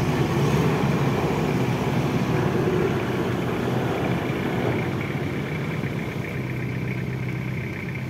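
A 4x4 pickup truck's engine running steadily at low revs as the truck crawls through muddy ruts, a little louder in the first few seconds and then easing off.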